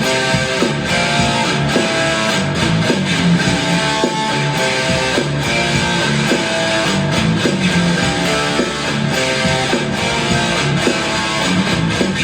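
Electric guitar played through an EVH 5150 Overdrive pedal: a continuous run of overdriven riffs with quickly changing notes.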